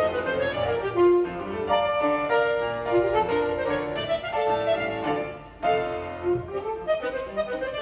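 Saxophone and piano playing a lively ragtime piece, the saxophone's melody moving in quick, separate notes over the piano accompaniment. The music drops away briefly about five and a half seconds in, then picks up again.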